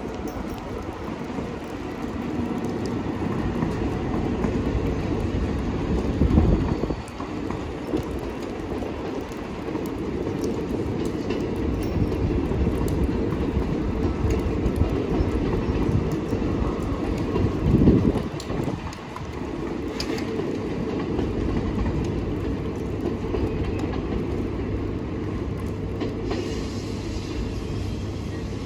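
Double-deck Transilien commuter train, a locomotive-hauled push-pull set, running past on the station approach tracks: a steady low rumble of wheels on rail, with two brief louder swells about six and eighteen seconds in.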